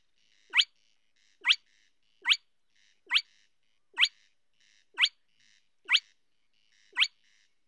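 Spotted crake giving its territorial call: a short, sharply rising whistled 'whit', repeated evenly about once a second, eight times.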